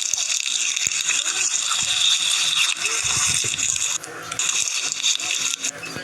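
Slime being squeezed and worked by hand: a dense, crackly squishing with small pops, easing off briefly about four seconds in.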